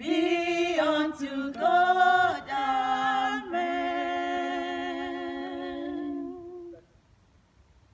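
Three women singing a cappella in harmony, closing the song on a long held chord that lasts about three seconds and stops a little before the end, leaving near silence.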